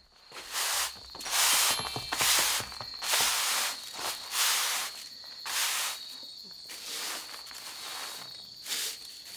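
Straw broom sweeping over tatami mats in brisk strokes, about one a second, brushing up scattered cat litter.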